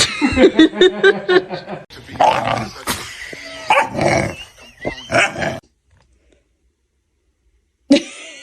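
A dog vocalizing in a rapid run of calls for about five and a half seconds, then it stops; a short loud sound starts near the end.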